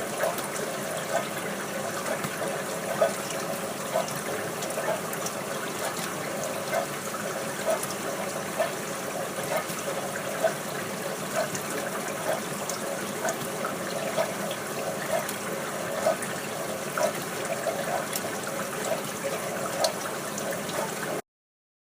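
Dishwasher running its wash cycle: a steady sound of spraying, splashing water with a regular swish about once a second. It cuts off abruptly near the end.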